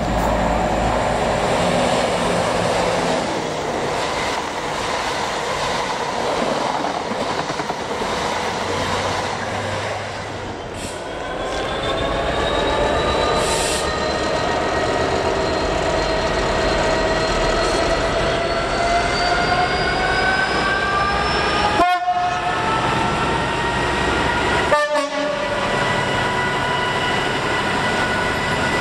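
A train rumbling past, then a Class 66 diesel locomotive's two-stroke V12 engine revving up, its note rising steadily for about ten seconds before holding at a steady pitch as the locomotive passes close by.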